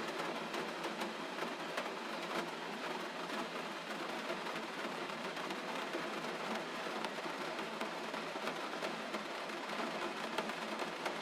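Steady gentle rain, an even hiss dotted with many small ticks of individual drops.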